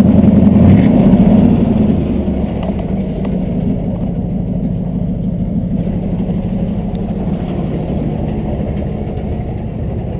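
Wrecker truck engine dropping from its raised winching idle to a low idle about two seconds in, then idling steadily.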